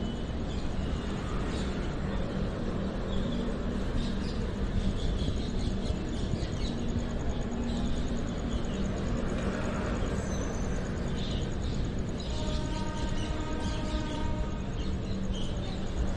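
Passenger train coaches running past close by: a steady rumble and rush of wheels on the track.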